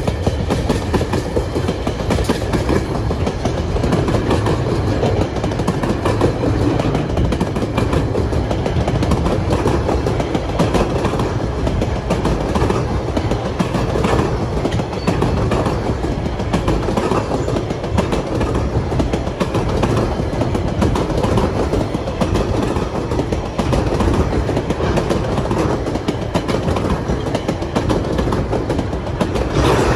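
Empty log wagons of a freight train rolling past, steel wheels clattering on the rails with a continuous clickety-clack and rattle.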